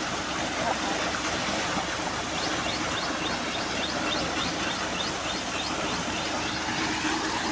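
Steady rushing and hissing of compressed air and water being forced up out of a bore well during compressor flushing.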